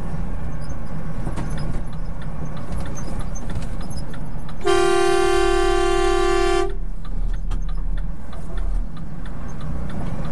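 A vehicle horn sounds once, a single steady blast of about two seconds, starting near the middle, over the low steady hum of an engine and road noise heard from inside a vehicle.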